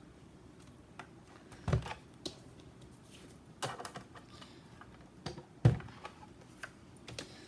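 Irregular clicks and knocks as small metal cutting dies and a die-cutting machine's cutting plate are moved and set down on a tabletop, about seven separate taps, the loudest near two seconds in and near six seconds in.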